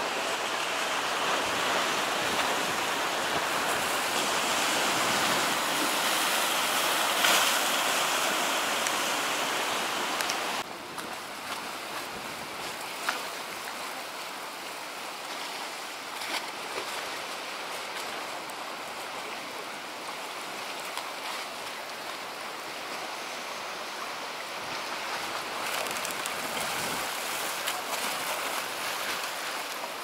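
Rough storm sea surging and breaking on a rocky shore, with strong wind. About ten seconds in, this cuts abruptly to a quieter sound of choppy harbour water sloshing against moored wooden boats, still with wind.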